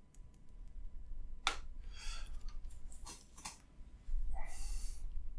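Stylus tip tapping and scratching on an iPad's glass screen as solid dark ink is laid down: scattered light clicks, then a louder rush of noise about four seconds in, over a steady low hum.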